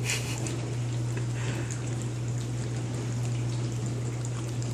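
A corgi puppy licking peanut butter off its lips, a short wet smack at the very start and faint lip clicks after, over a steady low hum and hiss.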